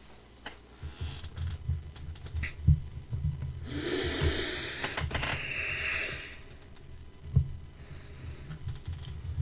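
Movement noise close to a microphone: irregular low bumps and knocks, with a long, noisy breath or rustle for about two seconds in the middle.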